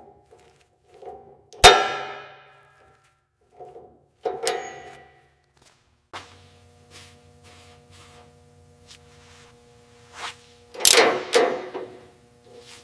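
Metal parts or tools clanking, each strike ringing on. The loudest strike is about two seconds in, another comes near four and a half seconds, and several come in quick succession near eleven seconds. A steady machine hum starts about six seconds in.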